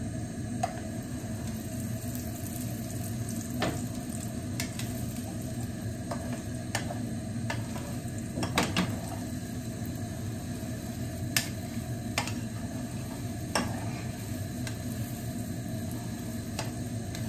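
Eggs frying in butter in a nonstick pan with a steady sizzle, while a silicone spatula scrapes and taps against the pan as the eggs are scrambled; about a dozen sharp taps are scattered through it.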